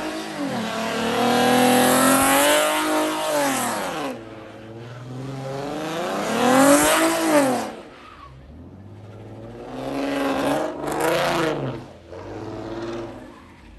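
A car engine revved hard three times, its pitch climbing and then falling away with each rev. The second rev, about seven seconds in, is the loudest.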